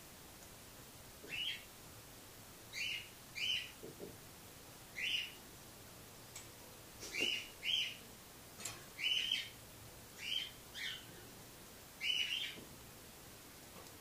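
Cockatiel giving about a dozen short chirps, a second or so apart.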